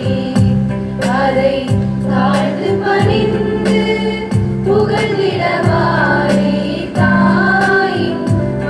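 A group of women singing a flag song, accompanied by a steady held low drone and a regular beat.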